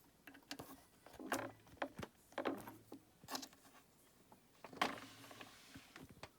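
Faint, irregular clicks and light knocks, about a dozen spread through several seconds, with a brief low hum coming up twice in the first half.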